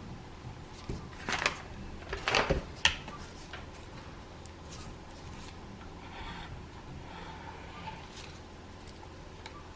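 Hands working adhesive strips onto an iPad's frame: a few sharp clicks and scrapes in the first three seconds, then faint rubbing and rustling.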